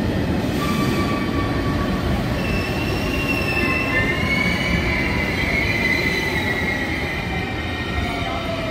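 Italo high-speed train rolling slowly past along the platform: steady rumble of the wheels on the track with a high wheel squeal in several thin tones that drift slowly in pitch.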